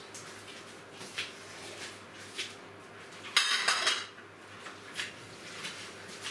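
Dishes and cutlery clinking as they are handled during hand washing-up. There are scattered single clinks, and a louder run of clattering about three and a half seconds in.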